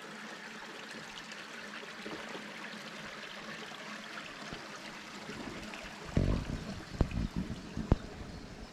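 Small moorland river running steadily beside the camp, an even rush of water. Near the end come a few low thumps and two sharp clicks, louder than the water.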